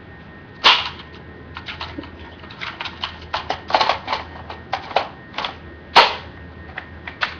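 Sharp plastic clicks and snaps from a G36 airsoft rifle being handled as its magazine is taken out, with two louder snaps, one about a second in and one near the end, and a quick run of smaller clicks between them.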